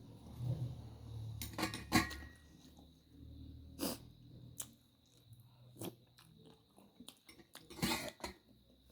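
Close-miked eating sounds of a person chewing, with a few sharp, crackly bite and mouth-smack sounds at irregular intervals.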